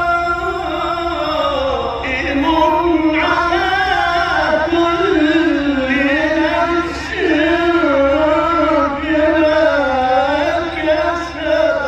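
A male Quran reciter chanting in the melodic mujawwad style, drawing out a long, ornamented vocal line that wavers up and down in pitch without a break.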